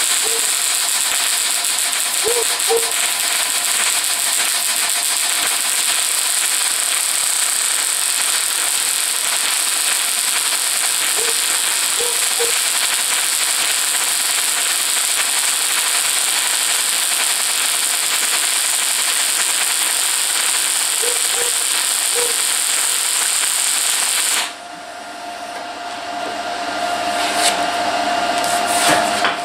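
Wire-feed welder arc crackling and hissing steadily through a long continuous weld bead on a steel frame, cutting off abruptly about 24 seconds in. After it stops, a quieter steady hum and a few light clicks remain.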